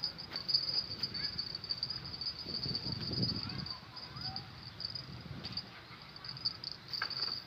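Insects chirring in a steady, high-pitched drone, with a low rumble swelling briefly about three seconds in.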